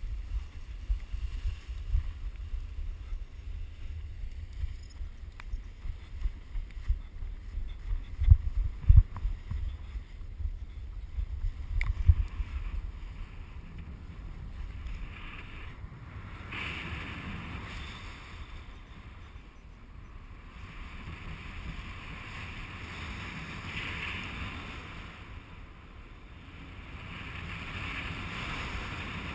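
Wind buffeting the microphone of a paraglider's point-of-view camera through the launch: a heavy low rumble with a few loud thumps. About halfway through, once the pilot is airborne, it gives way to a steadier, softer rush of airflow.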